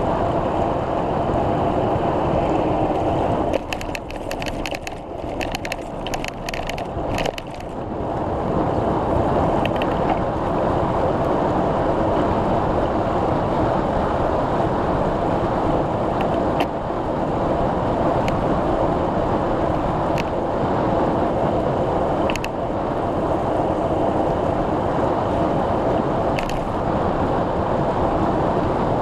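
A bicycle being ridden: steady tyre and wind noise. A few seconds in, the noise drops for about four seconds under a burst of rapid ticking, and a few single sharp clicks follow later.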